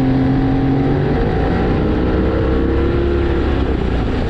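Boat's outboard motor running hard, its pitch steady at first and then rising from about a second in as it throttles up, with water and wind rush beneath.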